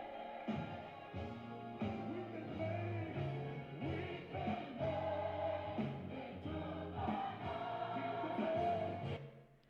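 Gospel song: singing over instrumental accompaniment with a steady bass line, fading out near the end.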